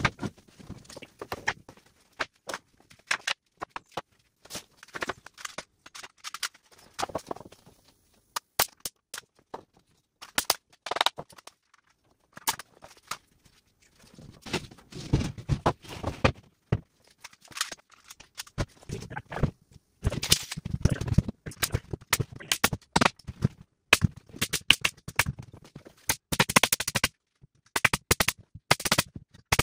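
Irregular sharp bangs and clatter from framing a 2x4 stud wall: a pneumatic framing nailer firing nails and lumber knocking on a concrete floor, coming thickest in the second half.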